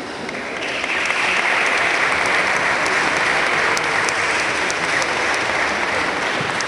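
Audience applauding, a dense clapping that starts about half a second in, holds steady, and eases off near the end.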